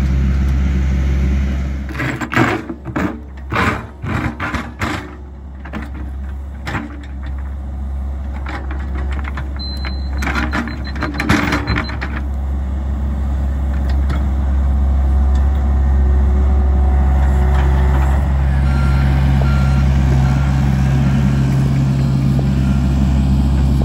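John Deere 60G mini excavator's diesel engine running, with a long stretch of scraping and knocking as its bucket digs a trench through rocky red soil, from about two seconds in to about twelve. The engine then runs steadily and a little louder, with a faint short run of beeps about two-thirds of the way through.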